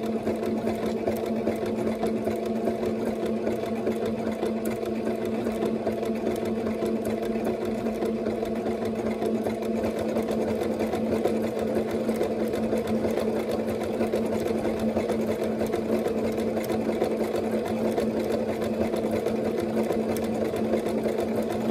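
Singer Starlet 6680 sewing machine running steadily at an even speed, sewing an overcast stitch along a fabric edge: a continuous motor hum with a fast ticking of the needle.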